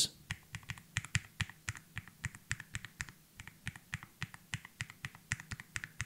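MelGeek O2 low-profile mechanical keyboard being typed on: a quick, irregular run of key clicks, several a second, from its pre-lubricated Kailh linear switches, with the keys struck harder than in normal typing.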